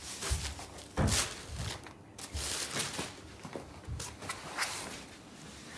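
Saree cloth rustling and swishing in irregular bursts as hands unfold and spread it out, with a few soft low thuds.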